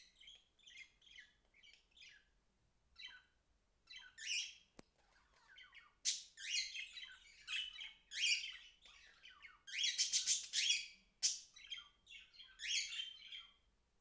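Budgerigar chirping and chattering in a run of short, quick bursts, busiest and loudest from about six seconds in.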